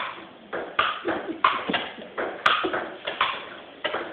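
Table tennis rally: a ping-pong ball clicking off paddles and bouncing on the table, a sharp hit every half second to second. Each click echoes off the bare concrete walls.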